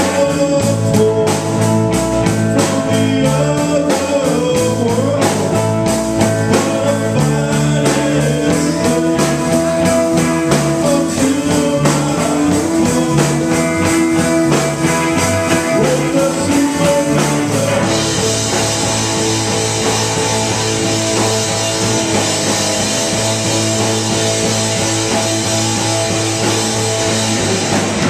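Live rock band playing on electric guitars and drum kit, heard loud in a small club. About eighteen seconds in, the beat gives way to a steady cymbal wash over a held, ringing chord.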